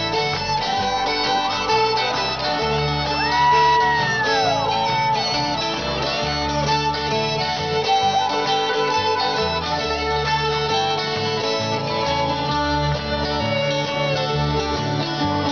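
Live bluegrass string band playing an instrumental break: fiddle over strummed acoustic guitars and banjo, with an upright bass underneath. A high note slides up and falls back about three seconds in.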